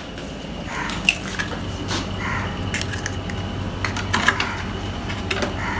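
Eggs being readied for beating in a kitchen bowl: a few scattered light clicks and knocks against the bowl, over a steady low hum.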